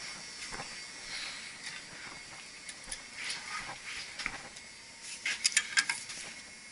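Scattered small clicks and knocks over a faint steady hiss, then a quick run of several sharp, loud clicks about five and a half seconds in.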